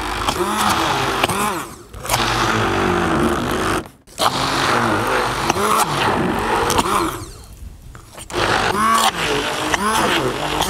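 Electric stick blender running in a tall plastic beaker, puréeing a thick feta and sour-cream mixture. Its pitch rises and falls as the blade churns through the thick mix. The motor stops briefly about 2 and 4 seconds in and for about a second near 7.5 seconds, then runs again.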